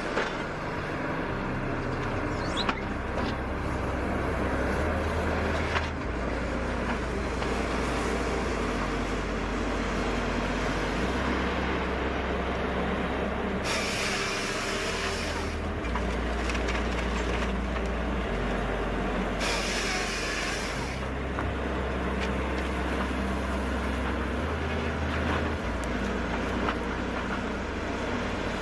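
Heavy machinery running steadily, its low drone shifting in steps, with two bursts of hissing partway through.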